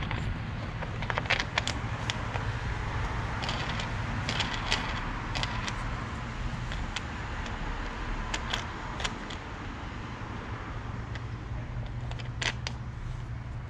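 Scattered light clicks and rattles of a crossbar dent puller being handled: its bridge is set over a glued pulling tab and the knob is turned to draw it up. A steady low hum runs underneath.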